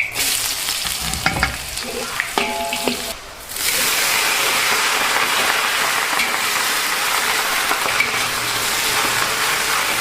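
Food stir-frying in hot oil in a wok, sizzling, with a few clicks of the spatula against the pan. The sizzle drops briefly, then comes back louder and steady about three and a half seconds in.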